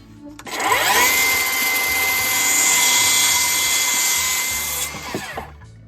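Electric power saw spinning up with a rising whine, running steadily as it cuts a piece of wood, then winding down about five seconds in.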